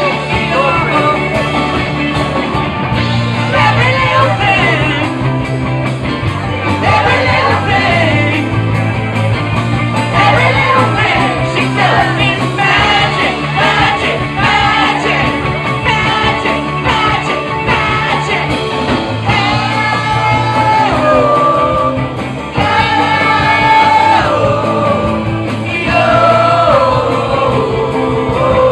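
Live band playing a song, a singer's voice over guitar, bass and drums.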